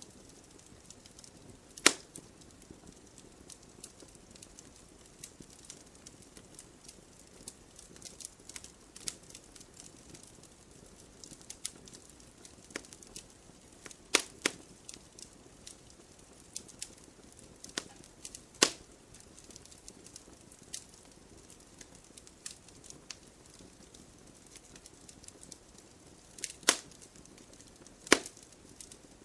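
Wood campfire crackling, a steady run of small snaps over a low hiss, with a few loud sharp pops every several seconds as the burning wood cracks.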